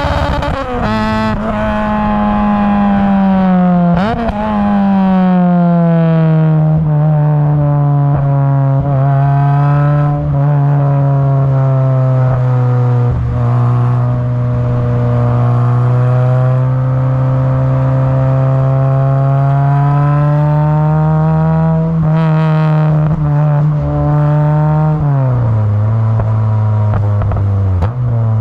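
Honda Civic Type R EP3's 2.0-litre four-cylinder engine breathing through a Tegiwa 4-2-1 manifold and 70 mm silenced exhaust, pulling under load on the road. Its pitch climbs and then drops sharply with an upshift about four seconds in, holds fairly steady and slowly rises through the middle, and steps down twice near the end.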